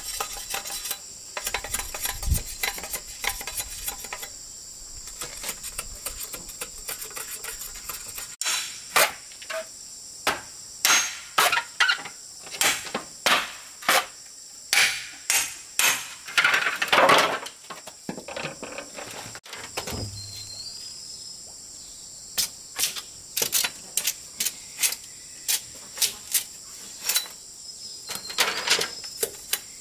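Repeated sharp knocks of hand-tool work, coming in runs of about two a second with a pause in the middle. A steady high insect buzz runs beneath them.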